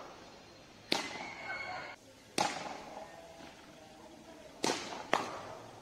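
Cricket batting practice in the nets: four sharp cracks of a leather ball on the bat and the pitch, each ringing on in an echo, the last two about half a second apart.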